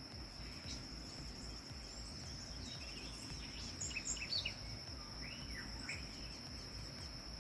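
Outdoor ambience: an insect's steady high-pitched trill throughout, with a handful of short bird chirps about three to six seconds in, over a low rumble.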